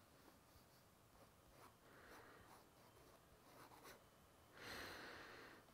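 Very faint scratching of a fountain pen nib hatching lines on sketchbook paper, in short strokes, with a louder hiss of about a second near the end.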